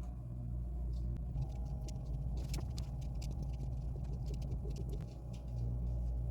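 3x3 Rubik's cube being turned quickly by hand: a run of irregular small plastic clicks over a steady low hum.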